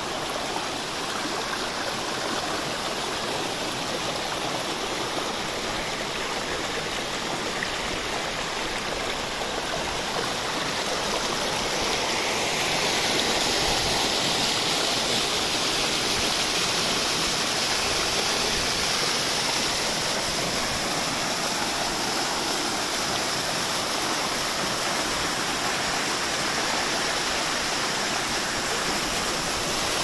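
Water of a rocky mountain stream running over stones and small cascades: a steady water noise that grows louder about twelve seconds in, near a small waterfall.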